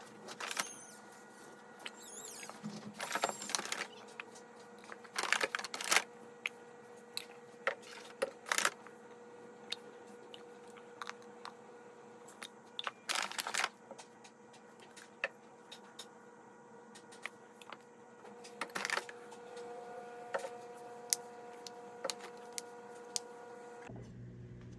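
Packaging and objects being handled during an unboxing: scattered clicks, knocks and crinkly rustles, some louder bursts among them, over a faint steady hum.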